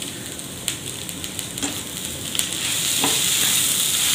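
Sliced okra and grated coconut frying in coconut oil in a nonstick pan, sizzling steadily and getting louder about two and a half seconds in as it is stirred, with a few light clicks of the turner against the pan.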